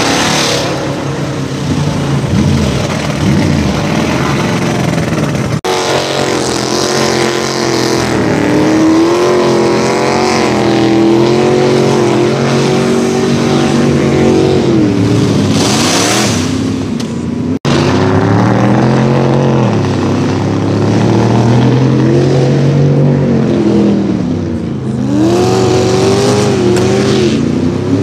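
Mud-bogging vehicles' engines revving hard, their pitch climbing and falling repeatedly as the throttle is worked, with the sound breaking off and changing abruptly twice.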